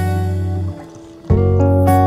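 Background music: an acoustic guitar strumming chords, a new chord struck about a second and a half in.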